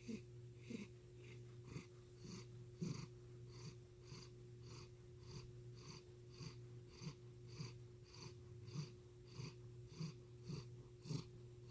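A ginger cat's unusual purr that sounds like heavy breathing. It is faint, with an even pulse a little under twice a second.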